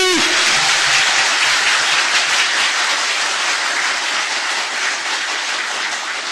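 Audience applauding, a dense steady clapping that slowly dies down.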